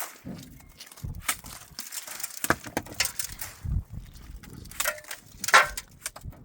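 Irregular footsteps crunching on snowy ground, with a louder scuff or rustle about five and a half seconds in.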